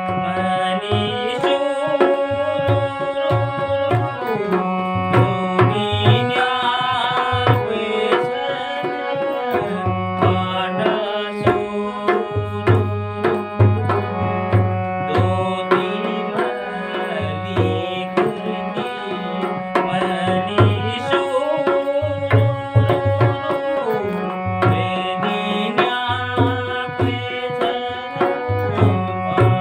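Harmonium playing a Kumaoni folk tune in held, changing notes over a steady hand-drum rhythm with repeated deep bass strokes.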